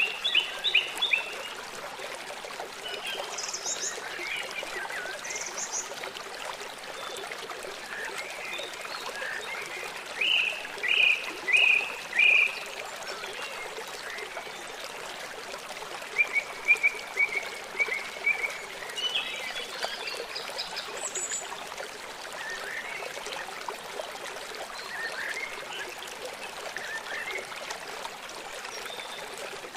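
Small birds calling in short, repeated chirps over the steady rush of running water. The loudest are a run of four sharp notes about ten seconds in and a quick series of notes a few seconds later.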